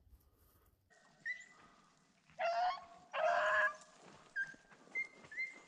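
Beagles baying as they run a rabbit's track: two long, loud bays near the middle, with shorter, higher yelps before and after.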